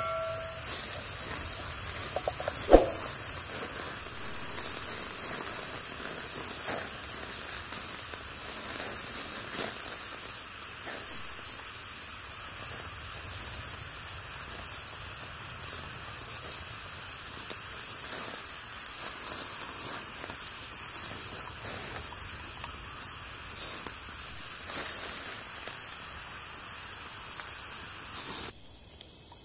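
Steady high chirring of insects, with faint scattered clicks and crackles from the wood fire under the simmering clay pot. About three seconds in, one sharp knock with a short ring: the wooden spatula striking the clay cooking pot.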